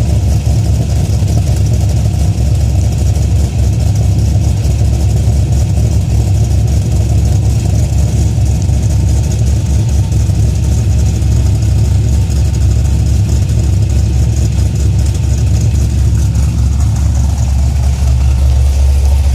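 2004 Cadillac CTS-V's 5.7-litre LS6 V8 idling steadily with a low, even rumble.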